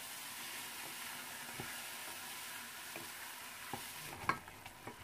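Quiet sizzle of tomatoes, onion and pork ribs sautéing in oil in a stainless steel pot. A wooden spatula stirs and knocks against the pot a few times, most sharply near the end.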